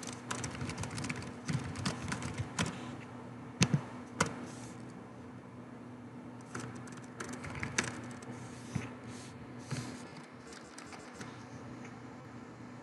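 Computer keyboard typing in two bursts of quick key clicks, with two harder key strikes about four seconds in, over a faint steady hum.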